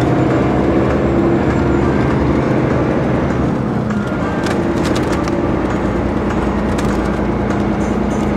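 Shuttle bus engine and road rumble heard from inside the moving bus, a steady drone. The engine note drops about three seconds in and rises again a second or so later.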